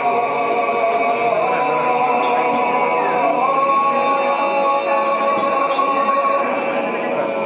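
Choir singing a slow Orthodox liturgical chant in several parts, with long held chords that shift pitch twice.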